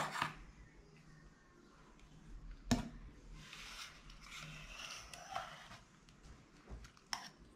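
Wire whisk stirring thick chocolate cream in a metal saucepan, working in a piece of butter: soft swishing and scraping against the pan in stretches, with a sharp knock of the whisk on the pan about two and a half seconds in and another near the end.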